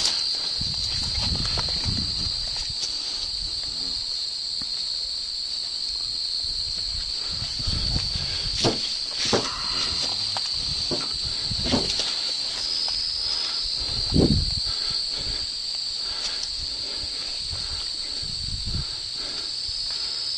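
Steady high-pitched chirring of crickets, with rustling and a few sharp knocks, the loudest about two-thirds of the way through.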